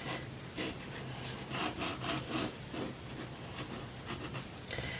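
Scratchy drawing strokes on paper, a series of short, irregular strokes as lines of a sketch are drawn.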